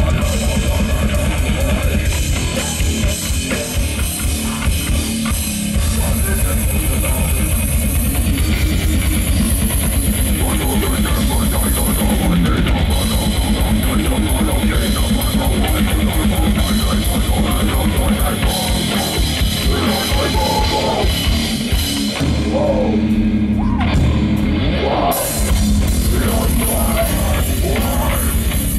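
Death metal band playing live: distorted electric guitar and bass over a drum kit with fast, dense drumming. About three-quarters of the way through the drumming thins out for a few seconds under a held low note, then the full band comes back in.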